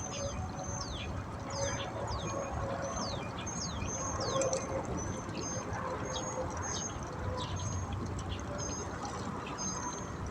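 Birds chirping over and over outdoors: short high notes alternating with quick downward-sliding whistles, about two a second, over a steady low background rush.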